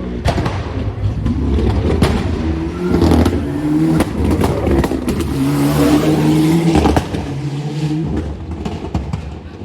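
Rally car engine revving hard under acceleration, its pitch climbing twice and then falling away, with frequent sharp cracks from the exhaust.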